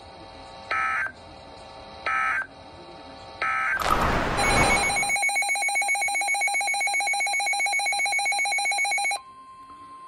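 Midland HH54VP NOAA weather radio receiving an Emergency Alert System broadcast: three short warbling data bursts of the SAME end-of-message code, a brief burst of static, then the radio's own loud, rapidly pulsing alert tone for about five seconds, which cuts off into the quieter steady 1050 Hz attention tone that announces the next severe thunderstorm warning.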